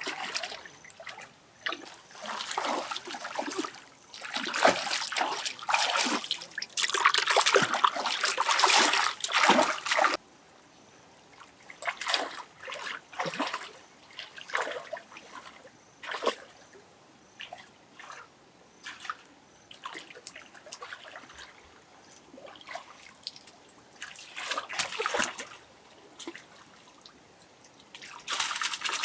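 Water splashing and sloshing in heavy bursts, as it is stirred during fishing. It cuts off suddenly about ten seconds in to scattered drips and small splashes, and heavier splashing returns briefly later and again near the end.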